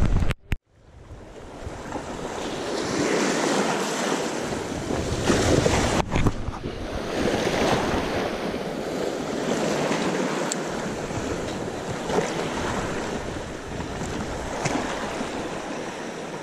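Small sea waves washing and breaking along a shallow shoreline, with some wind on the microphone. It starts after a brief silence near the start.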